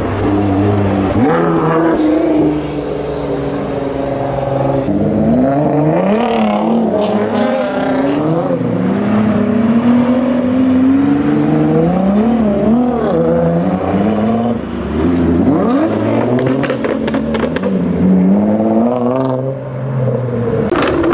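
Nissan GT-R engine revving and accelerating, its pitch climbing and dropping again several times as it goes through the gears. A run of exhaust pops and crackles comes in the last few seconds.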